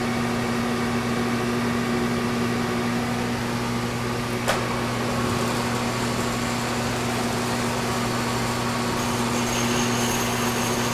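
Steady machine-shop hum of a rotary phase converter and a Kearney & Trecker horizontal mill running, with a vacuum drawing air through the end of the tube being bored. A single click comes about four and a half seconds in.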